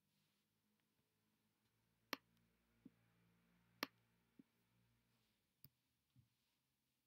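Near silence broken by a handful of faint computer-mouse clicks spaced a second or two apart, the sharpest about halfway through.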